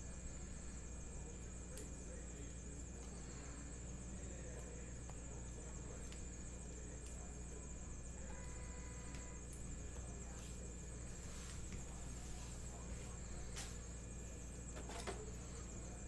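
Steady electrical hum and a high, even hiss, with a few faint clicks and rustles of trading-card packs and cards being handled, and a couple of sharper clicks near the end.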